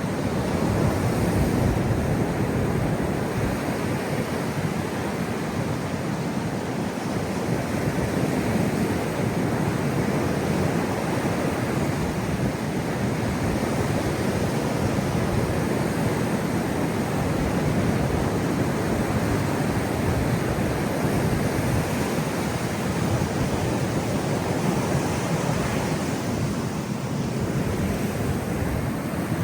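Heavy ocean surf, big waves breaking on a rocky shore in a steady, continuous rush of water noise.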